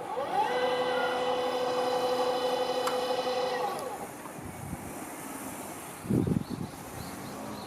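Electric motor of a railway level-crossing barrier raising the gates: a whine that spins up, holds one steady pitch for about three seconds, then winds down and stops. A few low thumps follow about six seconds in.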